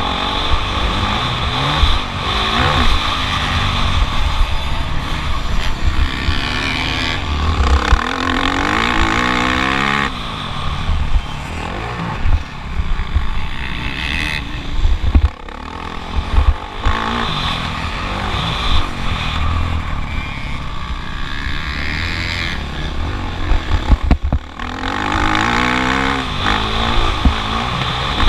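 Motocross bike engine revving hard and dropping back again and again as the rider works through the gears on the track, with heavy wind rumble on the bike-mounted GoPro's microphone.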